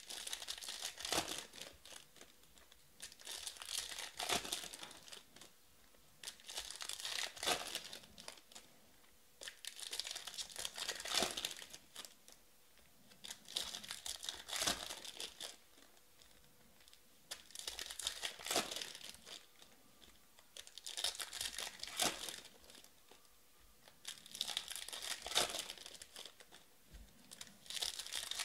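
Trading cards handled by hand: each card slid off the stack in turn, giving a short papery rustle about every three to four seconds with quiet between.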